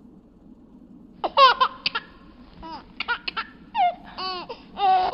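A small child's high-pitched babbling and squeals, in short calls that rise and fall in pitch, starting about a second in.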